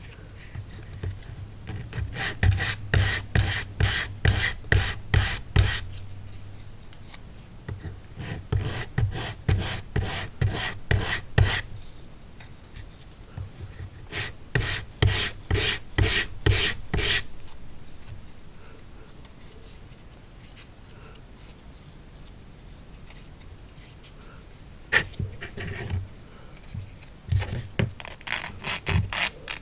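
Edges of thin laser-cut wood wall pieces rubbed over an emery board in short scraping strokes, about two a second, in several runs with pauses between, cleaning off the nubs where the parts were attached to the carrier sheet.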